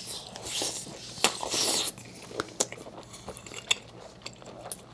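Close-miked chewing of a soft mouthful of rice, egg and tteokbokki sauce, with wet mouth noises and scattered small clicks, fuller in the first two seconds and sparser after.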